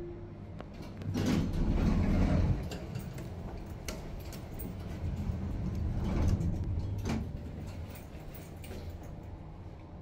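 The last note of a Schindler lift's two-note descending chime, then the lift's doors sliding with a rumble about a second in, and sliding again around six seconds in, ending in a clunk near seven seconds.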